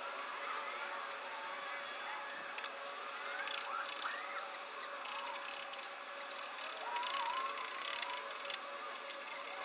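Light scratching and brushing as a small brush works over the exhaust manifold and its mounting studs, with faint quick chirping glides in the background.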